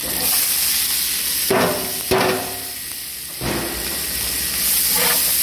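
Hot oil with cumin seeds sizzling in a steel pot as shredded cabbage, carrot and green pepper are tipped in and stirred, with a couple of sharp knocks of the spatula against the pot about a second and a half in and the sizzle surging again a little later.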